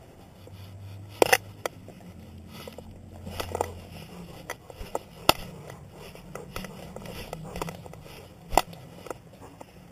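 Rubbing noise and scattered sharp clicks and knocks from a camera strapped to a dog moving about on a wooden floor, the loudest knocks a few seconds apart at irregular intervals. A low hum stops about four seconds in.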